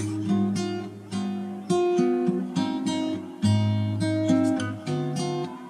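Background music: acoustic guitar, plucked and strummed notes with a bass line.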